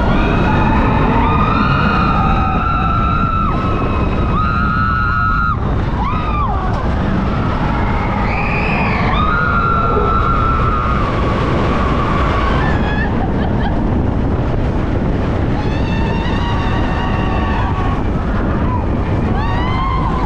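Vekoma roller coaster train running at speed, its wheels on the track and the rushing air making a loud, steady noise. Over it, riders scream and whoop in long, wavering cries, again and again.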